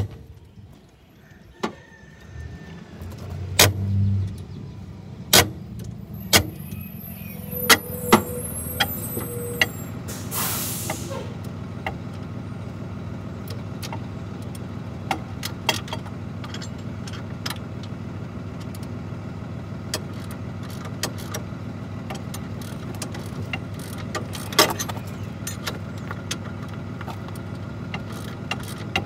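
A school bus's diesel engine starts up at a steady idle about three seconds in, with a short hiss of air brakes about ten seconds in. Sharp metallic clinks of a wrench on the suspension bolts come now and then.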